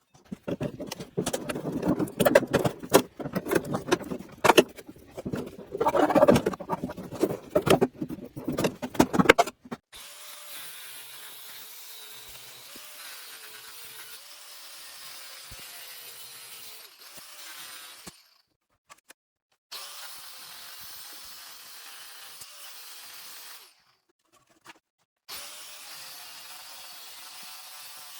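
About ten seconds of irregular knocking, scraping and rattling from refrigerator parts being handled and pulled apart. After that comes a steady, quieter hiss with a faint wavering hum, cut off abruptly several times.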